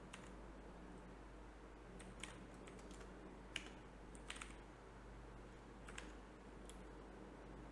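Faint computer keyboard keystrokes, a few scattered taps at irregular intervals, over a low steady hum.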